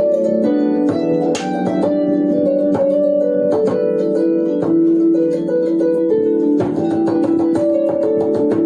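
Lyre harp played by plucking, a run of single notes, several a second, each ringing on so that the notes overlap.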